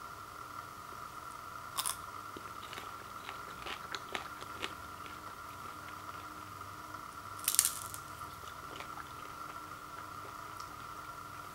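A person biting and chewing a cluster of chocolate-and-caramel-coated Snickers popcorn: a crunch about two seconds in, a few small crackles, and a louder crunch a little past halfway, over a steady faint hum.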